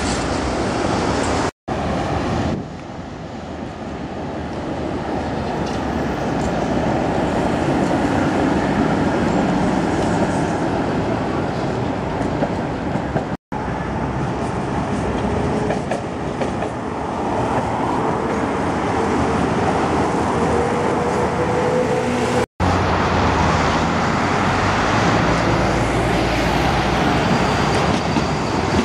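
Trams, Tatra T3 cars among them, running along street tracks beside road traffic: a steady rumble of wheels on rails and passing vehicles, broken by three abrupt cuts. A faint, slowly rising whine sounds through the middle.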